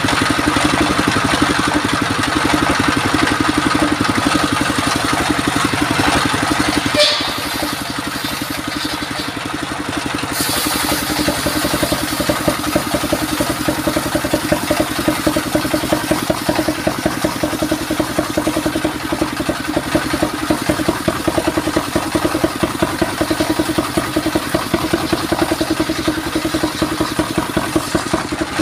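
Stationary engine running with a steady pulsing beat, driving a sawmill circular saw by belt while the blade rips a mahogany board. The hissing cutting noise drops away for a few seconds about seven seconds in, then comes back.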